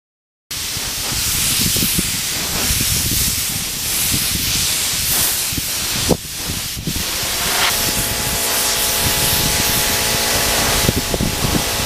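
Air-powered spray gun with a gravity-feed cup spraying clear coat onto a carbon fiber part: a loud, steady hiss of atomising air that breaks off briefly about six seconds in and then resumes. A steady hum joins in about eight seconds in.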